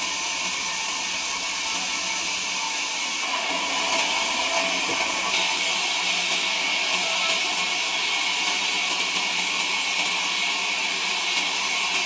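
Steady hissing machine noise that grows a little louder and brighter about three to five seconds in.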